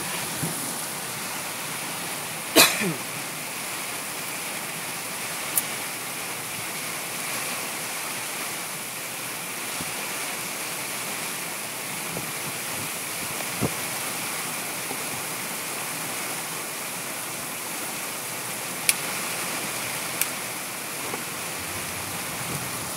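Rain falling with a steady hiss, with a few sharp taps or knocks scattered through it, the loudest about two and a half seconds in.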